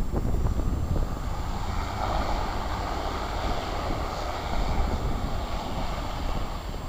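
Flybe Dash 8 Q400's twin turboprop engines running as it moves along the runway, their noise swelling about two seconds in. Wind rumbles on the microphone throughout.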